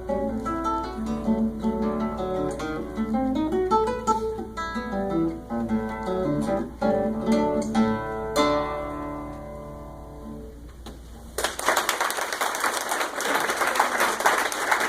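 Classical guitar playing the closing bars of a piece, ending on a chord left to ring and fade. About three-quarters of the way through, audience applause breaks out and carries on.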